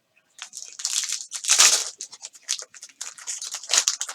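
Trading cards being handled: irregular rustling and scraping of cards sliding over one another, loudest about one and a half seconds in.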